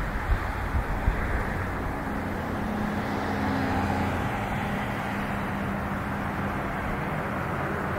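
Jet engines of a Boeing 777-200ER airliner on landing approach, a steady rumble with a faint hum held through it, and a few low bumps in the first second.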